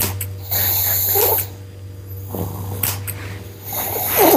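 A small Yorkshire terrier snorting through its nose several times in short bursts, the loudest about half a second in, over a steady low hum.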